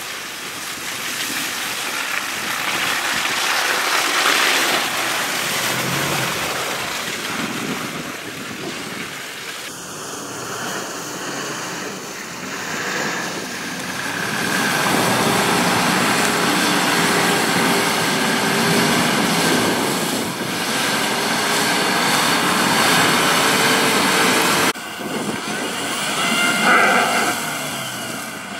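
Four-wheel-drive off-road vehicle engines running through mud and snow, with wind noise on the microphone; near the end an engine revs up.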